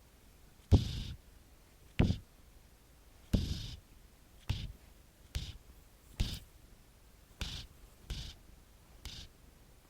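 Domestic cat snoring in her sleep: nine short snores at uneven gaps of about a second, each starting with a sharp click-like catch and fading quickly.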